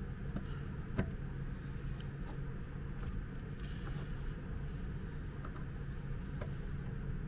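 Screwdriver tightening the terminal screws of an extension-cord plug: scattered small clicks and scrapes of metal on the screws, the sharpest about a second in, over a steady low background hum.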